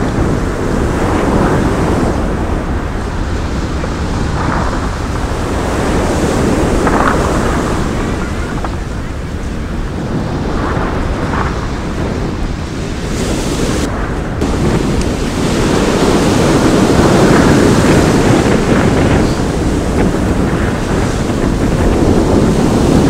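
Sea waves breaking and washing on a pebble shore, with strong wind buffeting the microphone. The surf rises and falls in slow surges and is loudest about three-quarters of the way through.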